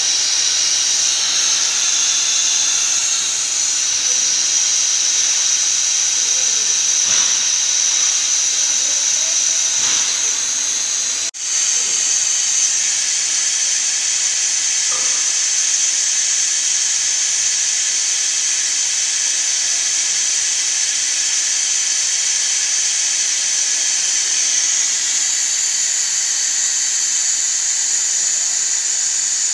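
A steady high-pitched hiss, with a few faint clicks of hand-tool work on the machine's mould; the hiss breaks off for an instant about eleven seconds in.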